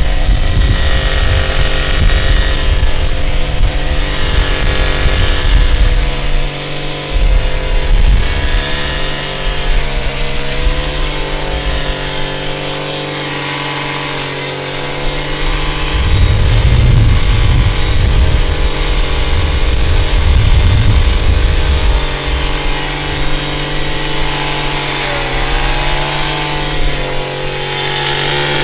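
Two-stroke chainsaw engine running, its pitch rising and dipping as the throttle is worked, with louder stretches around the start and again in the middle.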